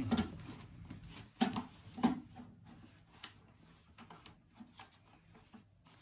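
Rustling and rubbing of a white filter bag being pushed down and smoothed by hand inside a Festool dust extractor's plastic container, with a few soft knocks against the container. The handling is louder in the first two seconds, then quieter.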